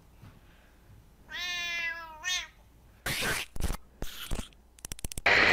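A cat gives one drawn-out meow about a second in, the alert-style meow it makes when someone walks in. Near the end come a few knocks and a burst of rustling noise.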